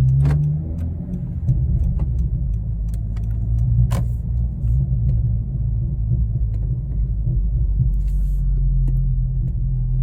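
Honda Civic Si's turbocharged four-cylinder running at low, steady revs while driving, heard as a low hum from inside the cabin, with a couple of sharp clicks.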